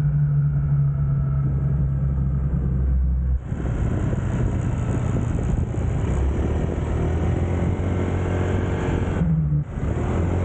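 Motor scooter's engine running steadily as it is ridden, with a noisy rush of road and wind noise over the low hum. The sound shifts abruptly about three and a half seconds in and dips briefly near the end.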